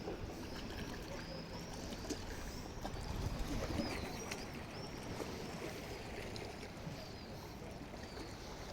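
Small sea waves lapping and washing on the beach, with a louder wash about three seconds in, while small birds chirp repeatedly overhead.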